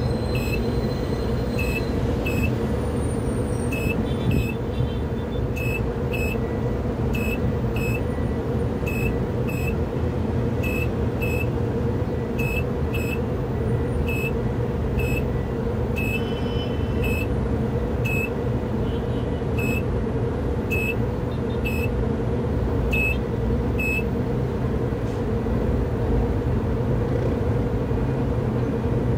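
Tower crane slewing, its drive running with a steady hum and rumble, while a short high warning beep sounds at an uneven pace about once a second as the jib turns. The beeping stops a few seconds before the end.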